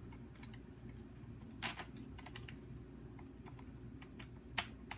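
A few irregular light clicks and taps of hard plastic parts of a disassembled Nerf Hyperfire blaster being handled and pressed together, the loudest about one and a half seconds in.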